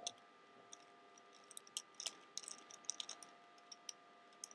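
Rubik's Cube layers being turned by hand: a quick, irregular run of faint plastic clicks, thickest in the middle, as a move sequence is worked through to finish the yellow face.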